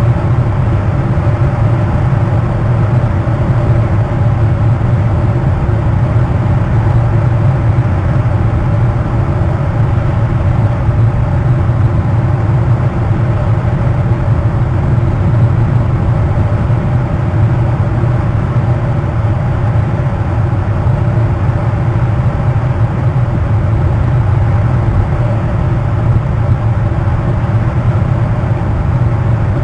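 Steady, loud low drone with a constant hum and no breaks or changes in pitch.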